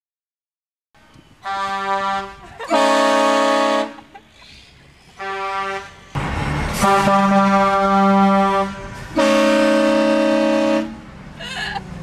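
Train horn mounted on a car, sounding five loud chorded blasts of a second or two each with short gaps between them.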